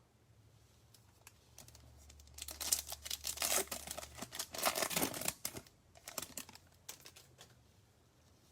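Crinkling and tearing of trading-card packaging as cards are handled, a dense rustle from about two and a half seconds in to about five and a half, then a few light scattered clicks and rustles.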